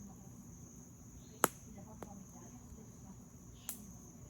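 Campfire wood popping with sharp cracks, the loudest about one and a half seconds in, a faint one just after and another near the end, over a steady high-pitched chorus of crickets.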